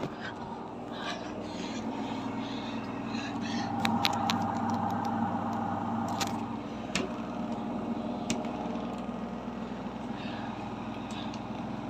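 Samsung washing machine spinning an unbalanced load: a steady motor and drum hum that swells to a louder whir for a couple of seconds, with sharp clicks, a cluster about four seconds in and single ones near seven and eight seconds, as the shaking drum knocks.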